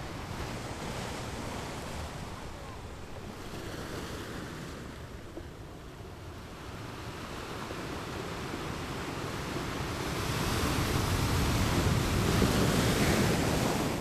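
Ocean surf washing in, a steady rush of water that swells to a loud wave breaking about ten seconds in and falls away near the end.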